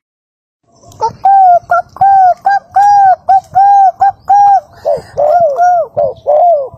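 Spotted dove cooing: a fast series of short, arched coos, starting about a second in.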